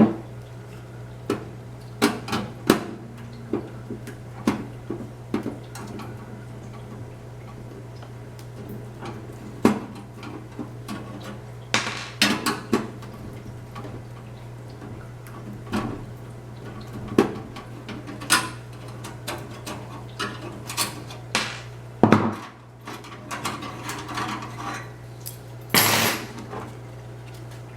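Irregular clicks, taps and clatter of hard plastic and metal computer parts being handled and fitted, with a few sharper knocks, over a steady low hum.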